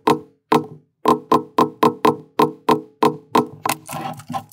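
Mallet blows on a metal leather stamping tool, pressing a pattern into holster leather resting on a granite slab, about four strikes a second, each with a short ring. After a brief pause near the start the blows run evenly, then turn lighter and quicker near the end.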